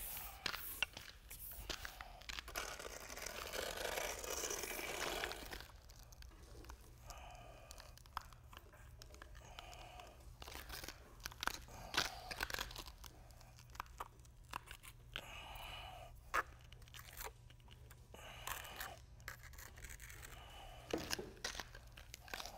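Faint scraping of a gauge rake and then a hand trowel spreading wet MMA resin over a concrete floor, with the clicks of spiked shoes stepping through the wet coating. A steady scraping runs for the first few seconds, then gives way to scattered short scrapes and clicks.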